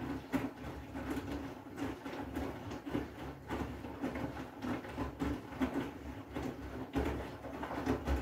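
Front-loading washing machine in its wash cycle: the drum turns with a steady motor hum while the wet clothes and water slosh and flop inside with irregular soft thuds.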